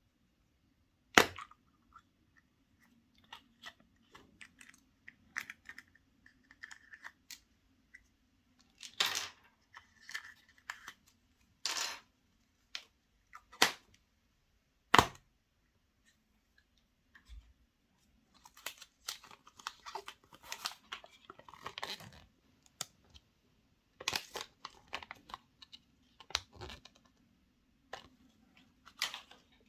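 Crinkling and tearing of chocolate-egg foil wrappers and plastic, close to the microphone. Several sharp clicks stand out, the loudest about a second in and about fifteen seconds in. Dense crackling rustles fill most of the second half.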